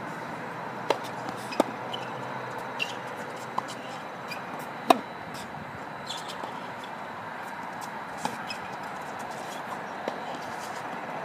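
Tennis balls being struck by rackets and bouncing on a hard court during a serve and rally: a string of sharp pops at uneven intervals, the loudest about five seconds in, over a steady background hiss.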